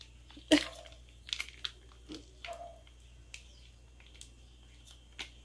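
Plastic mayonnaise sachet being squeezed, with faint crinkling and squishing and scattered small clicks; a sharper click comes about half a second in.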